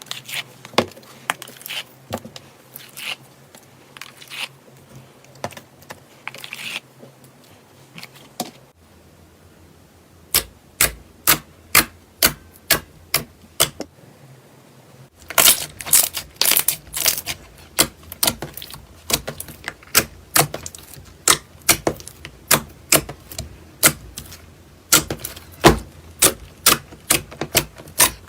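Slime being pressed and squeezed by hand, giving sharp clicks and pops: light scattered crackles at first, then about two clicks a second, then a dense run of loud clicks.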